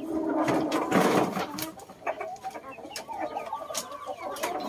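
Shamo chickens clucking, with scattered knocks and rustling, loudest in the first two seconds.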